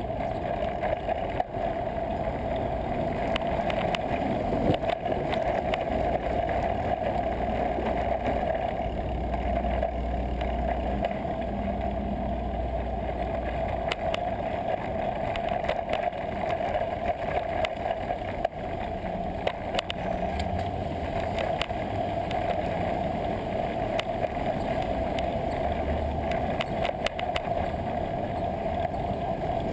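Steady wind and road noise picked up by a camera mounted on a bicycle riding through city traffic, with low rumbles swelling and fading a few times.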